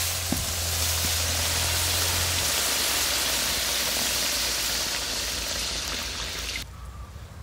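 Onion, spice paste and raw tomato sizzling in hot oil in a curry pan, a steady frying hiss that drops off sharply near the end.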